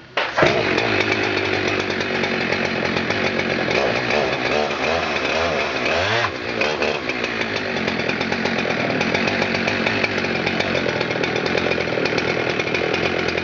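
Jonsered 2065 65cc two-stroke chainsaw starting up about half a second in and running on, its engine speed rising and falling in the middle before settling to a steady run.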